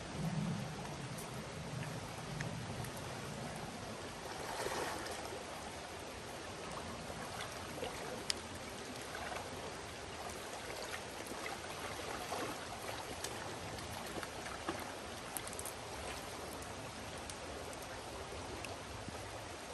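Creek current rushing steadily over a shallow, broken-water run. There is a short louder swell about five seconds in and a single sharp tick around eight seconds in.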